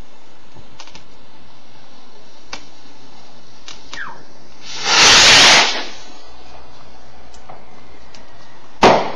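Fireworks: a loud hissing whoosh about a second long midway, then a single sharp bang near the end, with a few faint pops between.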